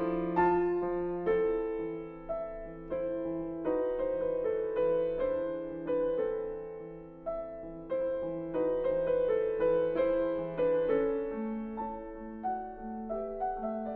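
Solo piano playing a slow classical piece: a legato melody over chordal accompaniment, with a repeated low note pulsing in the last few seconds.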